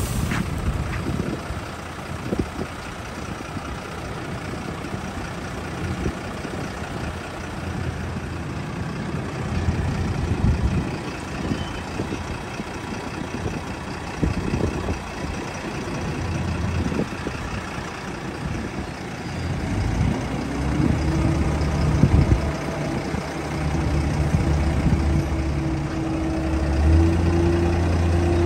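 MAN 18-250 truck's diesel engine running steadily while its truck-mounted knuckle-boom crane is worked. About two-thirds of the way through the engine note rises to a higher, steady pitch and gets louder, as the engine takes up the crane's hydraulic load.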